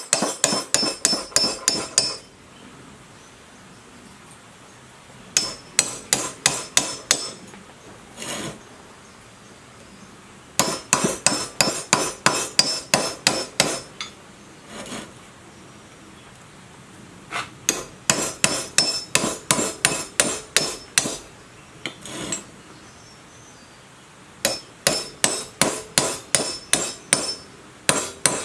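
Hammer striking a steel rod held inside a rusty electric motor housing: sharp, ringing metal-on-metal blows at about four a second, in runs of a few seconds with short pauses and the odd single blow between them.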